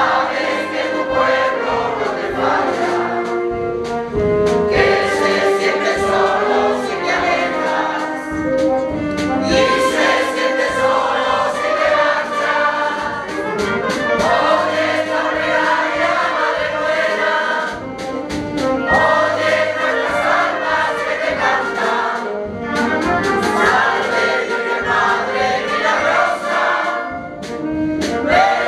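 Choral music: a choir singing sustained, held notes.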